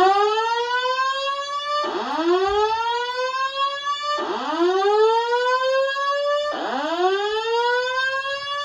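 Simplex 4100ES voice evacuation system sounding its slow-whoop alert tone through the alarm speakers: four loud rising whoops, each about two seconds long, repeated back to back. It is the fire alarm signal set off by a manual pull station, the alert that comes before the spoken evacuation message.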